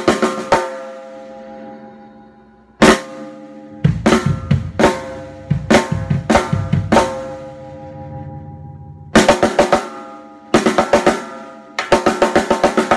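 A hybrid acrylic and solid-wood-block 14x8 snare drum struck with sticks in short phrases: a few strokes, a ringing pause, a single accent, then quick flurries and rolls. Each hit leaves a clear pitched ring that lingers between the phrases.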